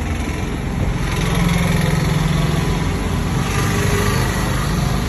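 A motor vehicle's engine running, swelling about a second in, over steady road traffic noise.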